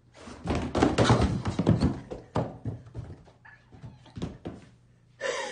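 Vans canvas sneakers thrown down a carpeted staircase, thudding again and again as they tumble onto the steps. The knocks come thick and fast in the first couple of seconds, then a few scattered ones follow.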